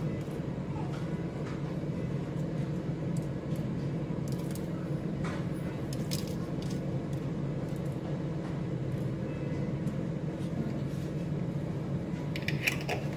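Steady low mechanical hum, with a few faint taps and clicks.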